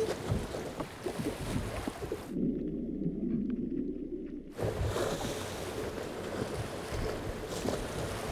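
Sea water rushing and splashing against a boat's hull as a shark held alongside is moved forward through the water to push water over its gills. For about two seconds in the middle the sound turns dull and muffled, heard from underwater, then the rushing splash returns.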